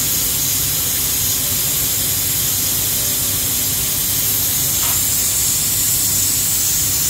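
Steady, loud hiss over a low rumble and hum from machinery at a scaffolded worksite, running without change.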